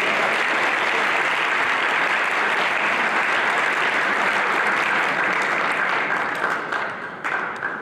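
Spectators applauding after a point in a table tennis match: a steady clapping that starts at once, holds for about six seconds and dies away near the end.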